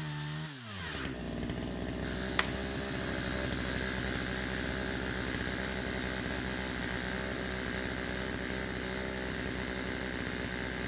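Chainsaw running at speed, its pitch falling as the throttle is let off within the first second, then idling steadily. A single sharp click comes a couple of seconds in.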